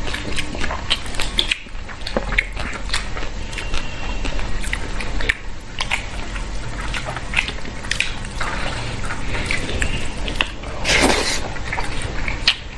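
People eating rice with dal and fried fish: chewing and mouth sounds with frequent small clicks, and one louder, longer noisy sound about eleven seconds in.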